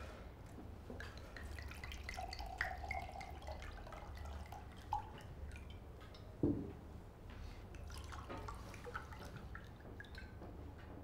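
Drinks poured into glasses: wine and then water trickling into glasses, the pitch rising as each glass fills, with a single knock about six and a half seconds in.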